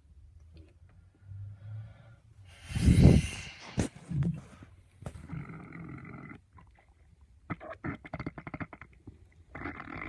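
A person's stomach growling: a series of irregular low rumbles and gurgles, the loudest burst about three seconds in and a quick run of crackling gurgles near the end.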